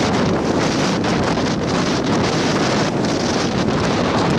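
Strong rear-flank downdraft wind of a tornadic supercell buffeting a car, a loud steady rush of wind with fast flickering gusts.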